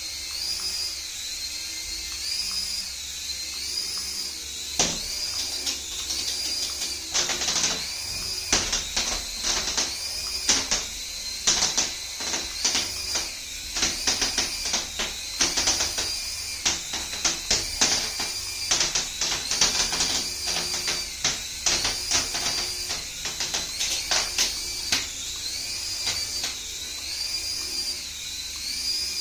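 A battery-powered remote-control toy giving off a high, wavering electronic tone that rises and falls about every second and a half, with a long run of plastic clicks and rattles through the middle.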